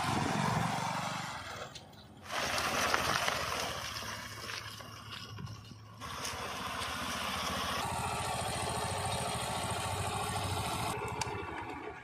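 Bajaj Discover motorcycle engine running as the bike is ridden, in several short pieces whose sound changes abruptly about two, six and eleven seconds in.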